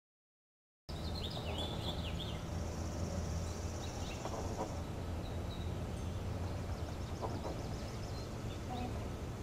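Outdoor ambience: small birds chirping, with a fast high trill held for about two seconds, over a steady low rumble. It starts abruptly about a second in, after a moment of dead silence.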